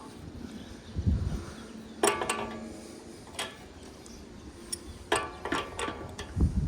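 A few sharp metallic clinks and knocks as a condenser fan blade is worked off its rusty motor shaft, two of them ringing briefly, about two seconds in and about five seconds in, with duller thumps near one second and near the end.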